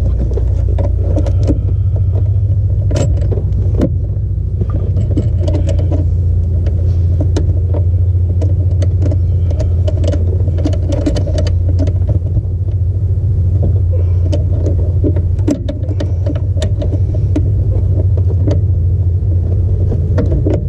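Light metallic clicks and taps of small parts being handled at the clutch pedal, where the clevis pin and its retaining clip are being taken off and refitted. A steady low rumble runs under the clicks.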